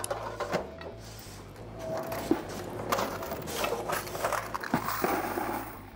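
Metal coin box of a Speed Queen commercial washer being unlocked and slid out, with a run of metal clicks and rattles.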